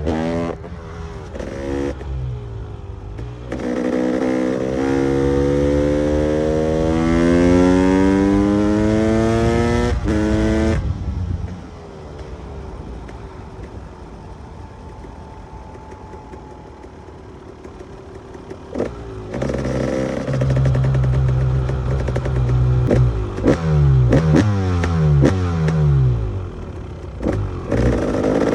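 KTM EXC 300 two-stroke enduro motorcycle engine revving hard, its pitch climbing steadily for several seconds before it cuts off sharply. It then runs quieter for a while, and near the end comes back with a series of quick revs rising and falling.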